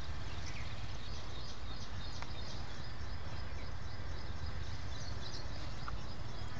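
Rural field ambience: a steady low rumble with small birds chirping in short, repeated high notes.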